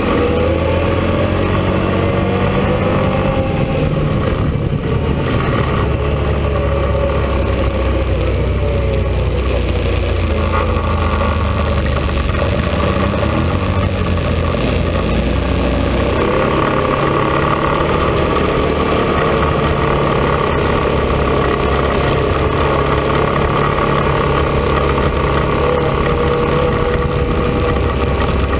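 ATV engine running under way, its pitch rising and falling with the throttle through the first half, then holding steadier from about halfway on.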